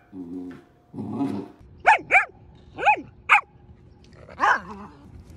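Samoyed making low grumbling back-talk sounds twice, then short high-pitched puppy yips: four quick yips, each rising and falling in pitch, and one more near the end.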